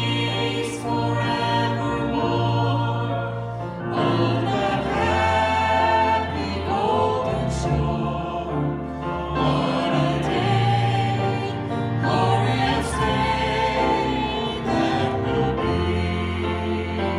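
Three voices singing a slow gospel song into microphones together, over an instrumental accompaniment with held bass notes that change every couple of seconds.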